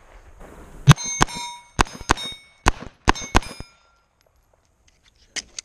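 Rapid pistol fire, about seven shots in two and a half seconds. Each shot is followed by the ringing clang of a steel plate being hit. Two fainter knocks come near the end.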